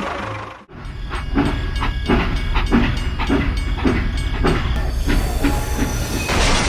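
A machine's low rumble with a regular knocking clatter, about two knocks a second, coming in after the earlier sound cuts off abruptly about half a second in.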